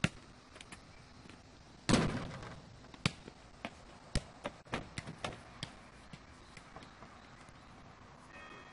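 A small rubber basketball bounces once on a concrete driveway. About two seconds in comes a loud hit with a ringing tail, followed by a run of bounces that come quicker and quieter as the ball settles. Music starts near the end.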